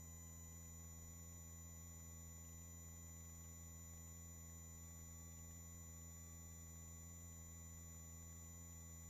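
Near silence: a faint, steady electrical hum with a few thin steady tones on the audio line. No rotor or engine noise comes through.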